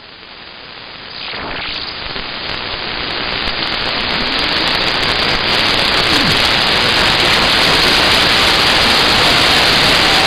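CB radio receiver static: a steady hiss that swells over the first few seconds and then holds, with faint wavering whistles drifting through it.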